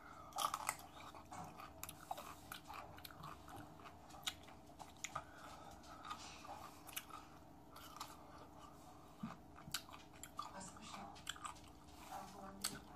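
A whole pickle being bitten and chewed: a loud crunching bite about half a second in, then irregular wet crunches and smacks of chewing.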